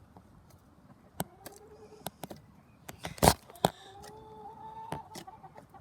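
Chickens pecking and scuffling over a caught mouse: scattered sharp clicks and knocks, with one loud knock about three seconds in. Two faint drawn-out calls sound, one in the first half and a longer one after the loud knock.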